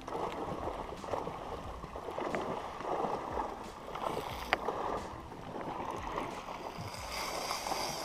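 Water lapping and sloshing against the hull of a small inflatable pontoon boat drifting on the sea, in uneven surges, with a sharp tick about halfway through.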